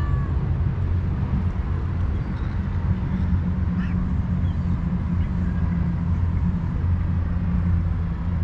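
Steady low rumble like a motor running, with a few faint high calls about three to four seconds in.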